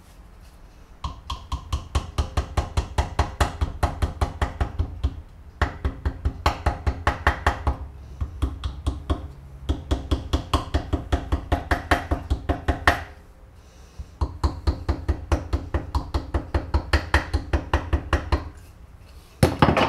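Rapid light hammer taps on a ringing metal part, about five a second, in four runs of a few seconds with short pauses between them, then a louder blow at the end.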